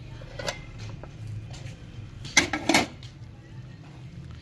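Steel lid being lifted off a karahi (wok), with a light metal clink about half a second in and a louder clatter of metal on metal about two and a half seconds in. A steady low hum runs underneath.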